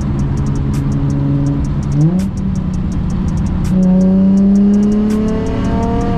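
Car engine heard through a nearly straight-piped exhaust (non-resonated test pipes into a single-exit muffler), cruising steadily, then a quick rev about two seconds in. From about four seconds it is louder under acceleration, its pitch slowly climbing.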